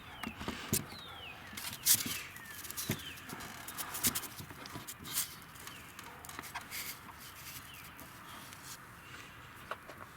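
Scattered light clicks and knocks of tools and parts being handled, with a few short falling bird chirps in the first few seconds.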